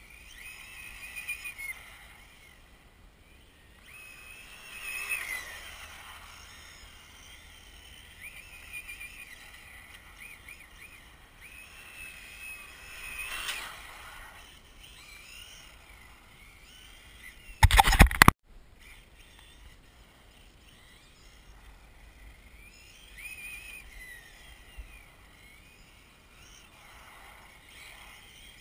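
An RC drift car's brushless electric motor whining, its pitch rising and falling with the throttle, with tyre noise on asphalt swelling twice as the car passes close. About two-thirds of the way in there is a short, loud crackling burst.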